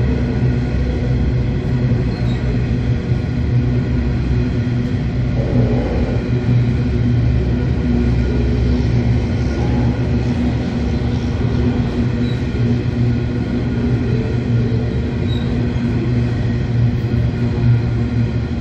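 Empty diesel-hauled coal train moving slowly: a steady, unchanging diesel locomotive hum over a low rumble.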